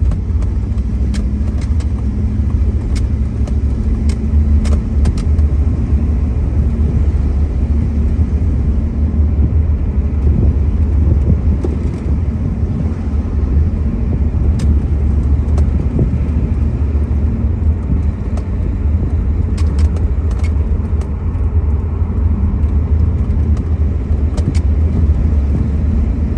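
1963 Ford Thunderbird's V8 running steadily while the car cruises, with a continuous low rumble of engine and road noise. Scattered sharp clicks or rattles come through now and then, a few near the start and a cluster a little past the middle.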